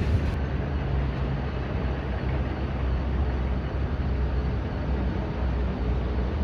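Steady low machine rumble with a low hum, unchanging.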